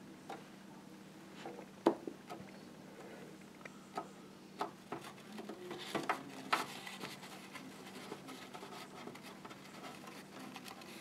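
Scattered light clicks, taps and rubbing of a clear plastic tub being handled at close range, over a steady low hum. The sharpest clicks come about two seconds in and again around six seconds.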